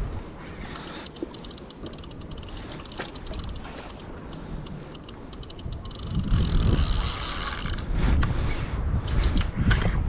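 Spinning reel's drag clicking in quick, uneven runs as a hooked crevalle jack pulls line, with a steady whirr of line peeling off the drag for about two seconds, about six seconds in. Wind rumbles on the microphone.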